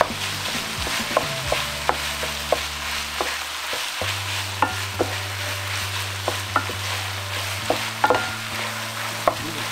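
Ground beef with diced bell peppers and onion sizzling in a frying pan as a wooden spatula stirs and breaks it up, with scattered clicks and scrapes of the spatula against the pan.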